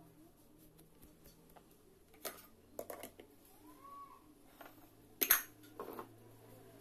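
A few scattered knocks and clatters of steel kitchen vessels being handled, the loudest a double knock about five seconds in. A brief tone rises and falls once near the middle.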